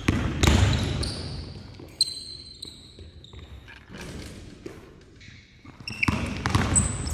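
Basketball bouncing on a gym court, a few sharp echoing impacts, with players' voices in between.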